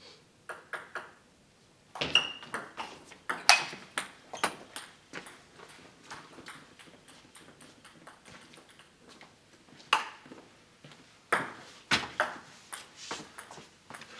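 Sharp, irregular clicks of a celluloid table tennis ball striking bats and table, clustered from about two to five seconds in, then more scattered clicks and knocks near the end.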